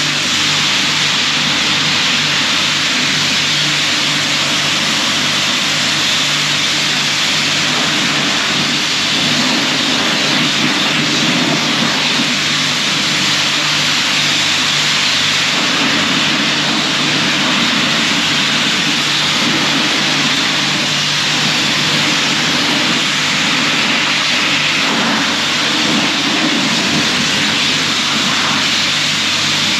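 Self-serve car wash pressure wand spraying a steady high-pressure jet of water onto a pickup truck's hood and body, a continuous hiss and spatter of water on sheet metal with a steady low hum underneath.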